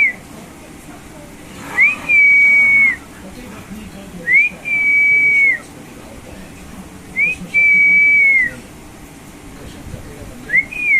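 A high whistle repeating about every two and a half seconds: each one a short upward flick, then a steady held note of about a second that drops off at its end.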